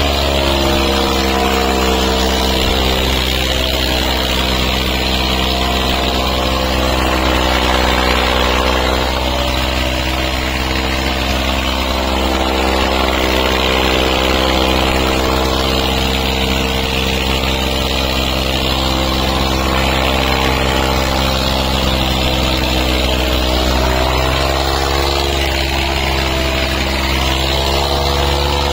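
Diesel tractor engines running flat out under heavy load as two tractors pull against each other, a steady, loud drone whose pitch wavers and shifts a little about three-quarters of the way through.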